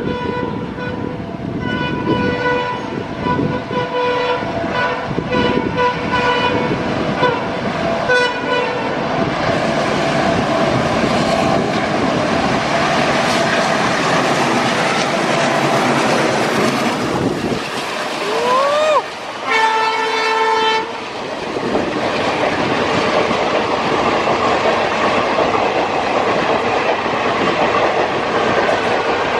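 ALCO WDM-3D diesel locomotive sounding its horn in a series of blasts as it approaches. Then the express runs through at speed, with a steady rush and the clatter of coach wheels over the rail joints. A short rising tone and a brief toot come about two-thirds of the way through.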